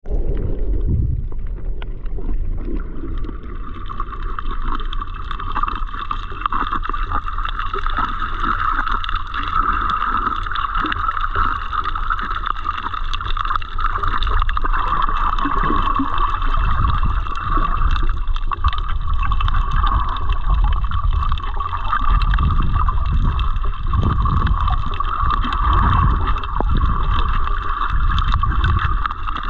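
Underwater sound picked up by an action camera while snorkeling: low, muffled rumbling and sloshing of water against the housing with irregular dull thumps. A steady high-pitched hum sets in a few seconds in and continues.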